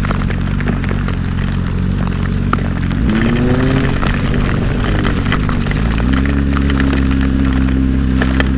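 2014 Yamaha R6's inline-four engine running low and steady, then rising in revs about three seconds in and again about six seconds in, where it holds a higher steady note. Small clicks of rain hitting the camera run through it.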